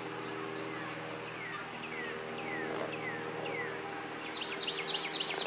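Osprey calling: about five short down-slurred whistles about half a second apart, then a quick run of higher, sharper chirps near the end, over a faint steady low hum.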